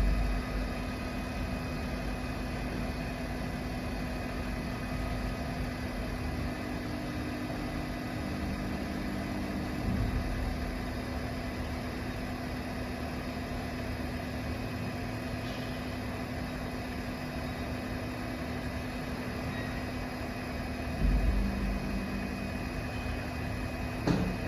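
BGA rework station running its heating profile: the steady whir of its hot-air blower and fans. A few short low bumps break in, about ten seconds in and again near the end.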